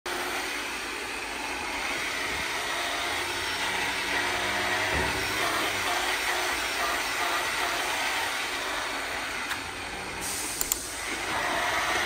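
Steady hiss and hum of a rotary milking parlour's vacuum and milking machinery, with two short clicks a little after ten seconds.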